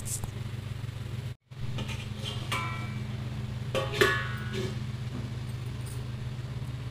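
A steel lid is set on a kadhai with light metallic clinks that ring briefly, about two and a half and four seconds in, over a steady low hum.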